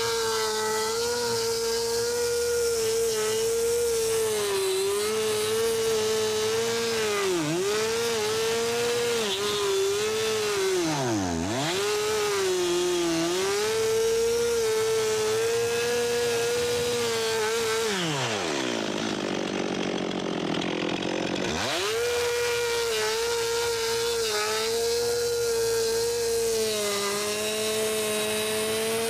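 Stihl 362 two-stroke chainsaw running at full throttle, sawing through wood slabs, its pitch dipping briefly several times under load. About eighteen seconds in the throttle drops back to idle for about three seconds before the saw revs up again.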